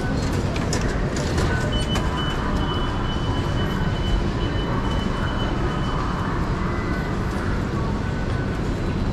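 Airport Rail Link train running, a steady low rail noise, with a thin high squeal lasting a few seconds from about two seconds in.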